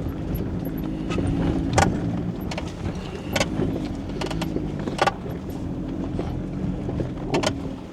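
Off-road vehicle engine running steadily at low speed on a dirt trail, with scattered sharp clicks and rattles, about five across the stretch.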